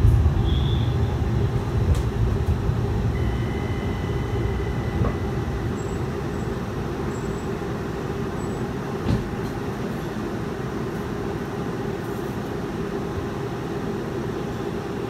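Cabin noise inside a Tempe streetcar, a Brookville Liberty modern streetcar, heard while riding: a steady low rumble that eases off over the first several seconds as the car slows toward a stop. A faint thin whine comes in briefly a few seconds in, and there is a single knock about nine seconds in.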